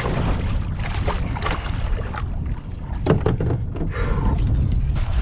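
Low steady rumble of wind on the microphone aboard a small fishing boat, with scattered knocks against the boat and one sharp knock about three seconds in.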